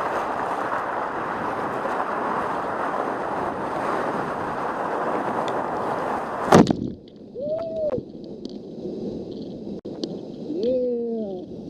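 Whitewater rapids rushing loudly around a kayak. About six and a half seconds in, a wave crashes over the boat with a sharp hit, and the sound then goes muffled. The kayaker gives two short excited yells, one about a second later and one near the end.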